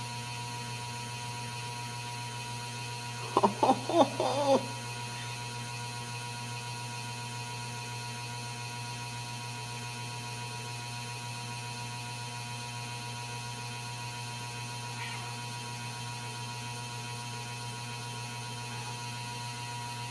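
Steady low hum, with a brief cluster of short, soft vocal sounds about three and a half seconds in.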